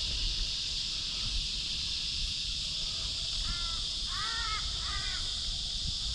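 A crow cawing three times in quick succession, about three and a half seconds in, over a steady high hiss and a low rumble of wind.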